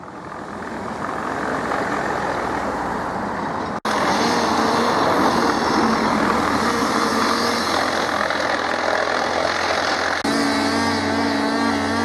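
Wood chipper's engine running steadily. The sound fades in, then breaks off sharply twice, about four seconds in and near the end. After the second break a steadier engine tone comes in.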